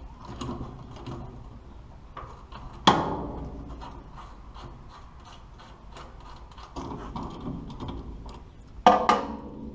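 Ratchet wrench clicking in quick runs as the bolts of a spreader's bearing unit are turned out, with two sharp metal clanks that ring briefly, one about three seconds in and one near the end.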